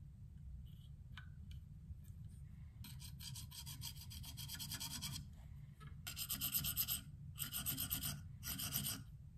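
A KME diamond sharpening plate rasping along a Benchmade Mini Barrage's steel blade in hand strokes in a guided-angle jig. There is one long stroke about three seconds in, then three shorter, louder strokes near the end.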